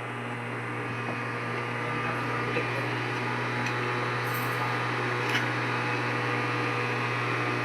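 Steady mechanical hum from a running motor, holding an even level, with a few faint light clicks.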